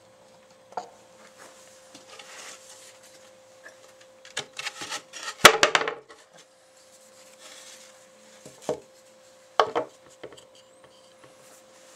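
Things being handled and set down on a workshop bench: scattered wooden knocks and clatter, with a burst of clatter and a sharp knock about five seconds in and a few single knocks later. A faint steady hum runs underneath.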